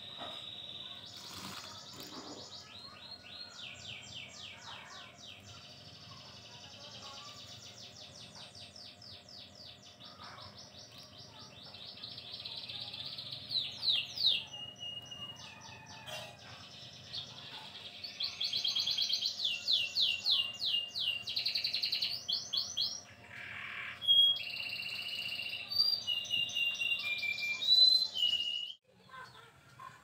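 Songbird singing: long runs of fast trills and chirps, getting louder about two-thirds of the way in, with short sharp calls near the end.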